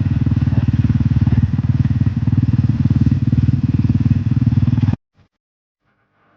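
Kawasaki KLX300R dirt bike's single-cylinder four-stroke engine idling steadily with a fast, even exhaust beat. It cuts off abruptly about five seconds in.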